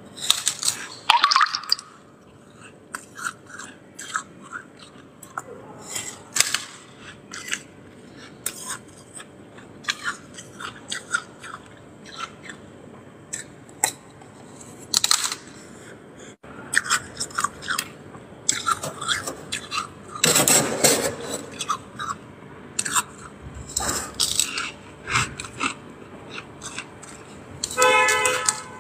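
Freezer frost scraped loose with a metal spoon and crunched between the teeth, in many short, irregular bursts. A brief pitched squeal near the end.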